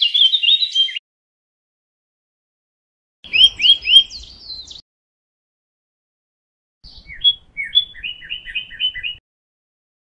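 Small songbird chirping in three short bursts of quick, sharp, high notes: one at the start, one around the middle, and a longer run of evenly spaced notes near the end, with complete silence between the bursts.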